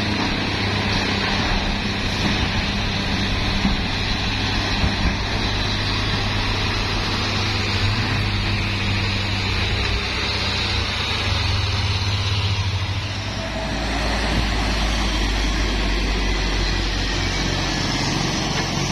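Heavy diesel trucks driving past one after another, their engines running steadily under load on the incline. About two-thirds of the way through, the engine note drops to a deeper hum as the next truck comes by.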